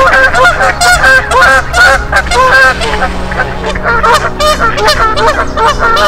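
Canada geese honking, many loud calls following each other quickly and overlapping, as from several birds at once.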